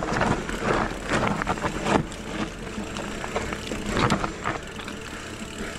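Electric mountain bike rattling and clattering down a rough, steep forest trail: irregular knocks from roots and rocks, the strongest about two and four seconds in, over a steady rush of tyre and trail noise.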